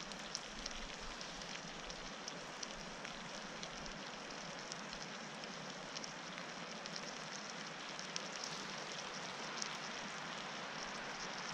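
Light rain pattering on a tarp shelter: a steady hiss with scattered small drip ticks.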